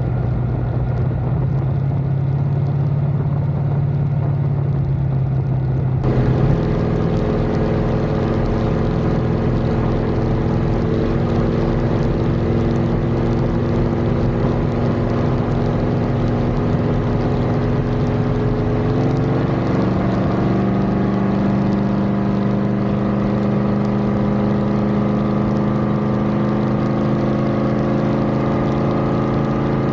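Dodge D150's 318 small-block V8 running, heard from inside the engine bay during a test drive: a steady engine drone. The sound changes abruptly about six seconds in, and the engine's pitch shifts again about twenty seconds in.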